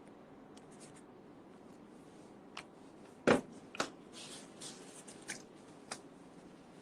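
A few short, sharp clicks and taps of handling noise, the loudest about three seconds in and a second one just after it, over a low room hiss.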